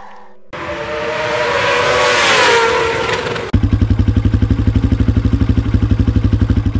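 Motorcycle engine: a rising rush of revving that swells and eases off, then from about three and a half seconds a steady, rhythmic idle with a fast even beat.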